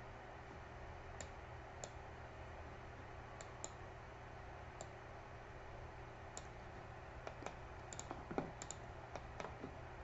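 Faint, scattered computer mouse clicks, coming faster in the last few seconds, over a low steady hum.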